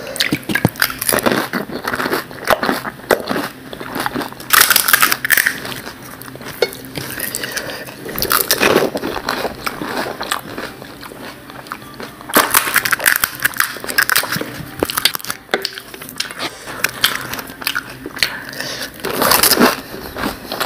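Close-up eating sounds of fuchka (pani puri): crisp fried puri shells crunching and being chewed with their wet filling, with sharp cracks and bursts of crunching a few seconds apart.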